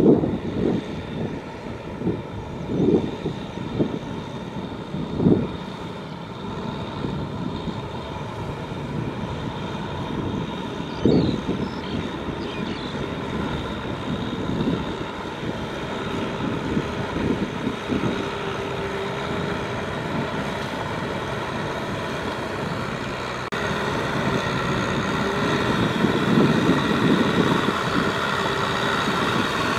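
Kubota M6040SU tractor's diesel engine running steadily under load while pulling a cultivator through deep mud, with scattered low thumps in the first half. The engine gets louder in the last several seconds.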